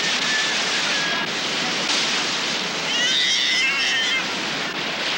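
Heavy surf breaking and washing steadily. About three seconds in, a girl wails in distress for about a second.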